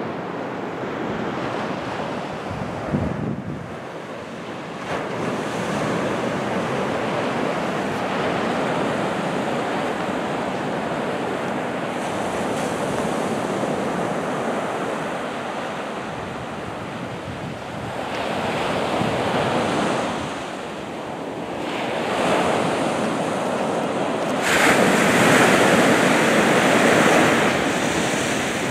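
Sea surf breaking and washing up the beach, swelling and falling back in waves, with a louder wave rushing in near the end. Wind buffets the microphone, with a brief low thump about three seconds in.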